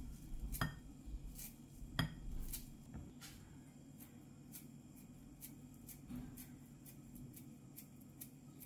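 Kitchen scissors snipping fresh dill into a bowl: a few faint, crisp snips, spaced out and clearest in the first three seconds.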